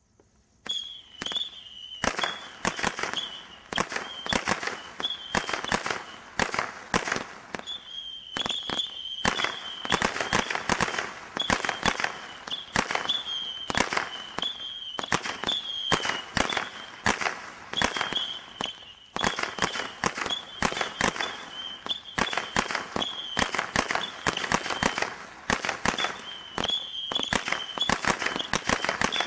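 Meteor Blitz 100-shot combination roman candle barrage firing: a rapid, continuous string of sharp shots starting about a second in. A high wavering tone comes and goes among the shots.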